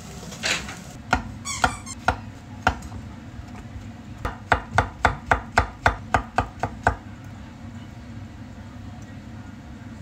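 Chef's knife slicing shiitake mushrooms on a wooden cutting board. A few scattered knocks come first, then a quick even run of about a dozen cuts at roughly four a second, stopping about seven seconds in.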